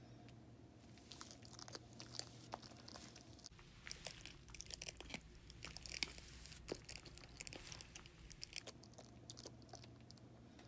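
Bearded dragon biting and chewing a hornworm: faint, irregular clicks and crunches of its jaws, thickest in the middle stretch.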